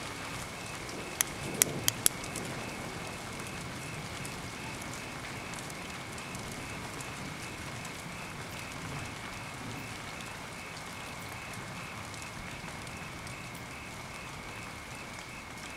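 Rain falling steadily, an even hiss, with three sharp clicks in quick succession about a second in.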